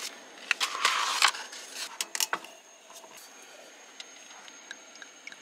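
Rustling and sharp clicks of a sake bottle and its packaging being handled and opened, busiest in the first half, then a few faint small ticks.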